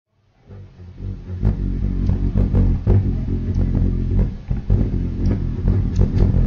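Opening of an experimental electronic music track: a dense, distorted low bass drone fades in over the first second and then holds, with irregular sharp clicks and hits over it.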